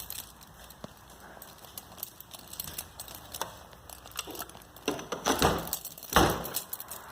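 Movement and handling noise: scattered light clicks and crinkling, with a few heavier thumps about five and six seconds in.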